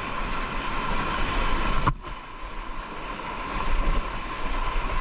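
Steady rush of river water with wind buffeting the microphone, a noisy rumble that drops out briefly about two seconds in.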